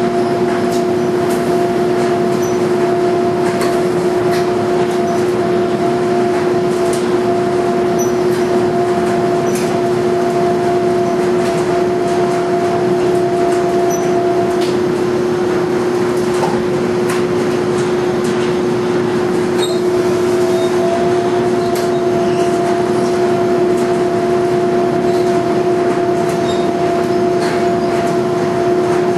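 Commercial laundry machinery running: a Speed Queen 125 lb washer-extractor tumbling heavy entry mats through sudsy wash water, with clothes dryers running alongside. A steady hum with faint clicks and knocks; a higher tone in the hum drops out for a few seconds in the middle, then returns.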